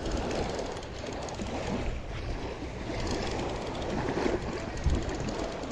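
Wind rumbling on the microphone over surf, with the whir and clicking of a conventional fishing reel being worked against a hooked fish.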